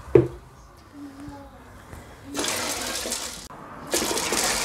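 Water poured into an aluminium pressure cooker of soaked red kidney beans, splashing onto the beans. It comes in two pours, the first from about two and a half seconds in and the second near the end. A single sharp knock sounds just after the start.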